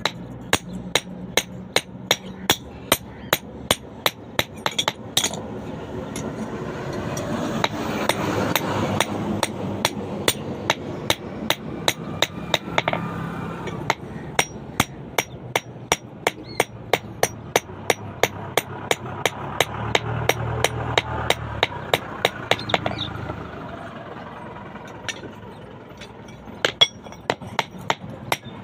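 Blacksmith's hand hammer striking steel on an anvil in a steady rhythm, about two to three ringing blows a second, as when forging a point on a rebar rod. A low background rumble swells up and fades twice under the hammering.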